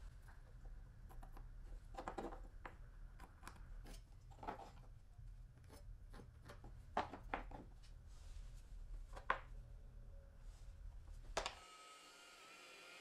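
Light handling sounds on a wooden workbench: scattered knocks and clicks as a small oak block, a steel rule and a pencil are picked up and set down, over a faint low hum. Near the end the hum stops and a faint steady high whine takes over.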